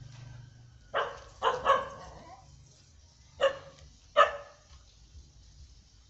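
Dogs barking: a quick run of three short barks about a second in, then two single sharp barks a couple of seconds later.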